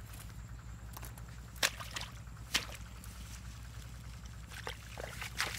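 Hands groping through wet grass and shallow muddy water, with a few short sharp splashes and squelches.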